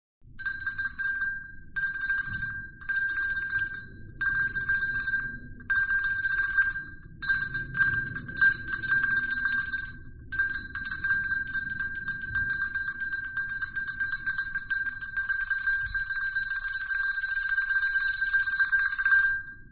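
Sound King AP-FM4 Swiss cowbell, a small metal bell with a clapper hung inside, shaken by hand so the clapper rings it. About six short shakes of roughly a second each come first, then it is rung without a break through the second half, stopping just before the end.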